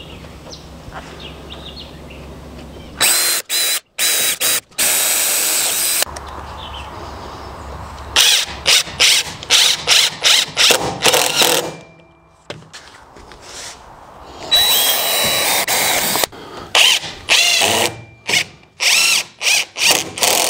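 Cordless drills running, first in a long run of a few seconds, then in many short trigger bursts, drilling and driving screws into a wooden block to lock a pipe in place.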